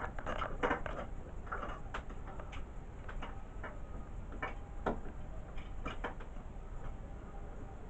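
Irregular light clicks and taps of a screwdriver and plastic switch parts being handled while a light switch is unscrewed.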